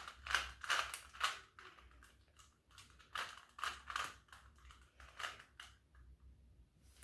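Rubik's cube being twisted by hand, its plastic layers clicking in quick irregular runs, dense at first and sparser after a second or two.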